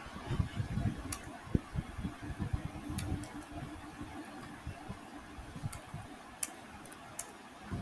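Computer keyboard typing: irregular soft key knocks with a few sharper clicks scattered through, over a steady background hum.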